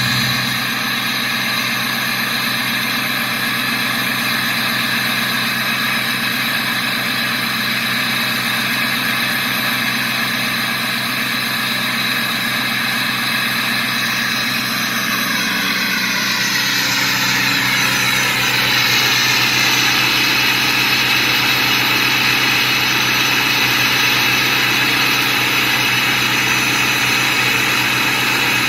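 Turbocharger whistling over a 6.0 engine idling while it warms up: a steady high-pitched whistle above the engine's low running. About halfway through, the whistle's pitch glides and shifts and it grows slightly louder.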